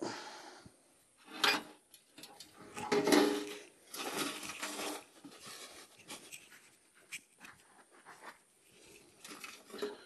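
Dry, cloddy soil being scraped and loosened by hand to dig a trap bed: several irregular scraping bursts, the loudest about three seconds in, with small clicks of clods and grit between them.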